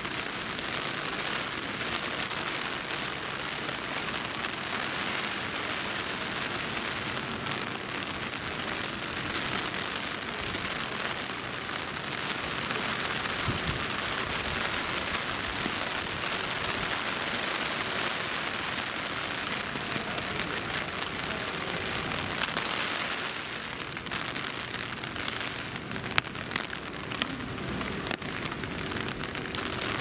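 Steady rain falling, an even hiss, with a few sharp drop taps near the end.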